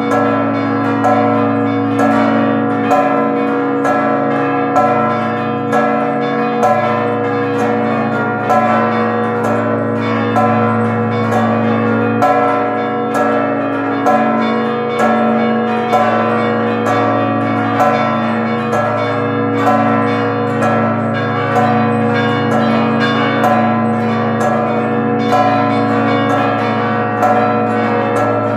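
Church bells rung together in a continuous festive peal: quick, overlapping strikes of the smaller bells over the sustained deep hum of the large bells, with louder strokes coming about once a second.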